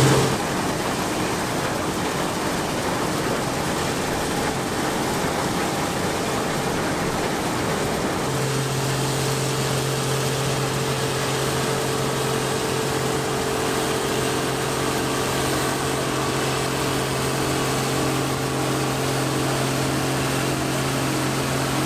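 Combine harvester running steadily while harvesting soybeans: an even rushing drone with a steady low hum that sets in about eight seconds in.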